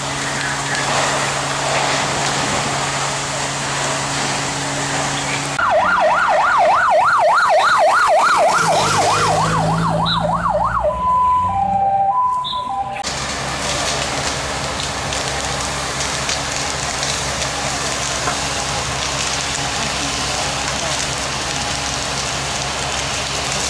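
A fire engine siren wails in a fast warble for about five seconds, then switches to a short two-tone pattern. Before and after it there is steady rushing noise from the fire and the water jets, with a low engine hum underneath.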